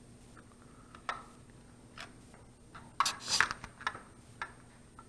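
Plastic clicks and scraping as the circuit board of a Hubsan drone controller is pushed back into its plastic housing: a few separate clicks, then a short clatter of clicks and scraping about three seconds in, the loudest part.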